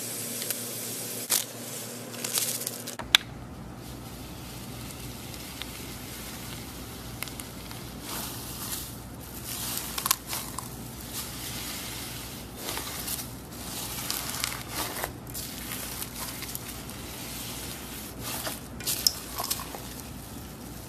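Small foam beads poured into slime in a metal bowl, a steady hiss for the first few seconds. Then a hand kneads and squeezes the bead-covered slime, giving irregular bursts of crackling and squishing.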